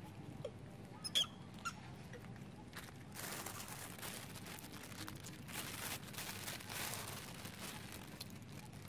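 Three short high squeaks, each an animal chirp, in the first two seconds; the middle one is the loudest and rises in pitch. Then a broad rustling hiss swells and fades for several seconds.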